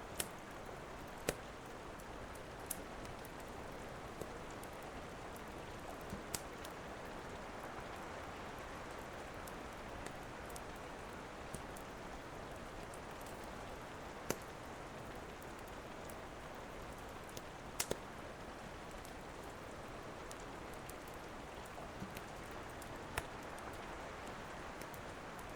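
Steady rain with a wood fire crackling, giving sharp single pops every few seconds, two of them close together about three-quarters of the way through.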